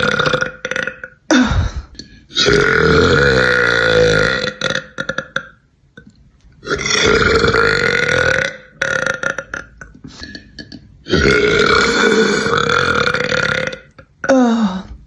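A woman burping repeatedly: three long, deep burps of about two seconds each, with shorter burps between them, two of which slide sharply down in pitch.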